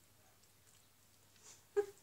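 Mostly quiet while a mouthful of pasta is eaten, with one short, sharp sound near the end.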